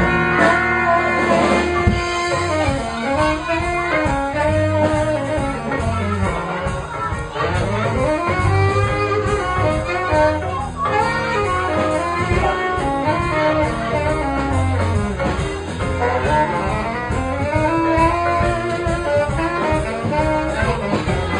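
Small jazz band playing live: a tenor saxophone carries a winding solo line over a moving bass line and band accompaniment.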